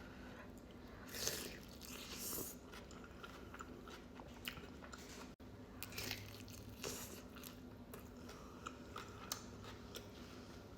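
A person biting and chewing crunchy food close to the microphone: crisp crunches, the loudest about a second in and again just after two seconds, then softer chewing crackles and mouth clicks.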